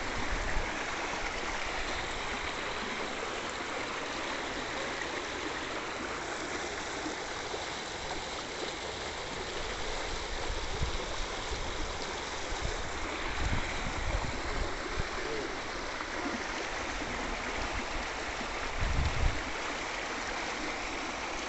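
Floodwater rushing across a street in a steady, even roar of flowing water. A few dull low thumps on the microphone come about midway and near the end.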